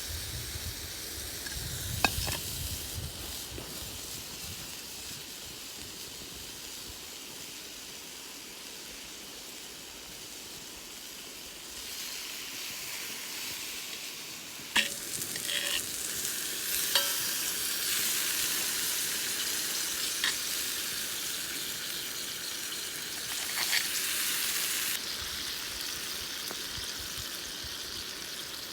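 Food sizzling in a cast-iron skillet over a wood fire, with a few sharp clicks and knocks. The sizzle gets louder about halfway through and stays strongest for most of the second half.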